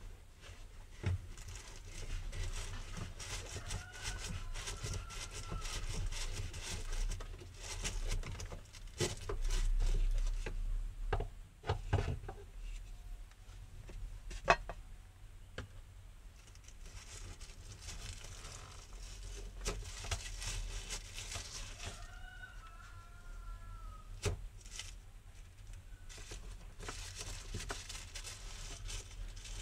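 Hands freeing the plastic lock ring of a BMW E36 fuel tank sender unit and reaching in to lift the assembly out: scattered light clicks, knocks and rustling of plastic parts, with one sharper click about fourteen seconds in.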